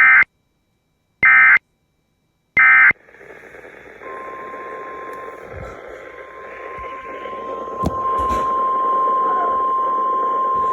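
Emergency Alert System broadcast on weather radio. Three short warbling SAME data bursts about a second and a half apart, the end-of-message code closing a tornado warning, give way to radio static. About four seconds in, a steady single-pitch tone of about 1 kHz starts and holds: the NOAA Weather Radio 1050 Hz warning alarm tone announcing the next tornado warning.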